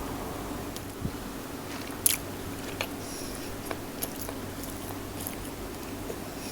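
Close-miked chewing of food, with wet mouth clicks and smacks; the sharpest click comes about two seconds in.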